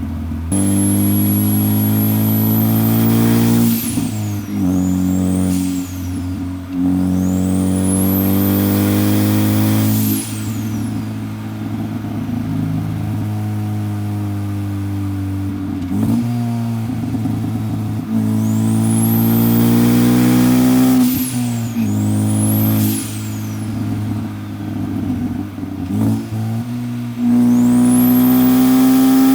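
Turbocharged Ford Focus ST engine pulling through the gears: the engine note climbs and drops back at each shift, several times over. A high whistle rises and falls with each pull.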